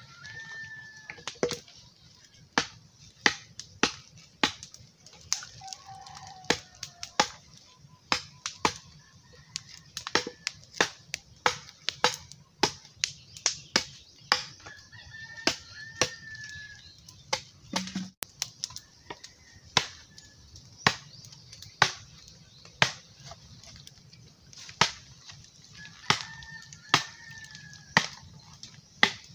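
A steel knife chopping on a wooden block in sharp, irregular strikes, about one or two a second. A rooster crows a few times in the background.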